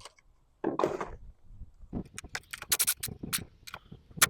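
Light metallic clicks, rattles and scrapes as loose hinge bolts and the refrigerator's top door hinge are handled. A short scraping noise about a second in, then a quick string of clicks in the second half.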